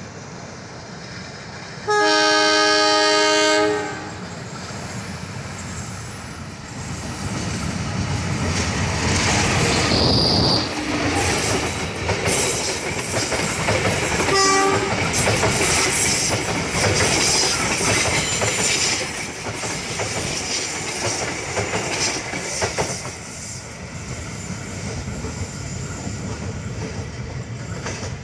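Train horn giving one long blast about two seconds in, then the train passing close with its engine rumbling and wheels clattering over the rails. There is a brief second tone about halfway through, and the noise eases off as the train draws away toward the tunnel.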